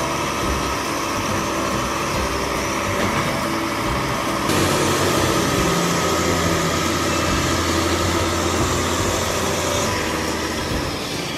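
Diesel engines of large four-wheel-drive farm tractors running hard under load while pulling a stuck tractor out of deep mud. The engine noise is steady and grows louder and brighter about four and a half seconds in.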